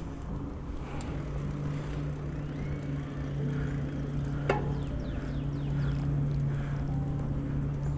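Bicycle rolling along a trail at a steady speed: a steady hum with rolling rumble, and one sharp click about four and a half seconds in.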